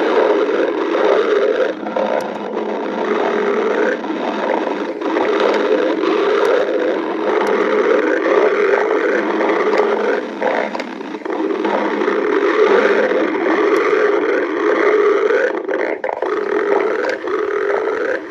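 A hungry stomach growling loudly and continuously: long gurgling rumbles that waver up and down in pitch, with only brief let-ups.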